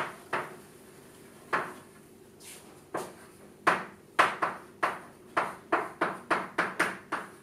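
Chalk knocking and scraping on a chalkboard as words are written: a few separate strokes, then a quicker run of about three strokes a second over the second half.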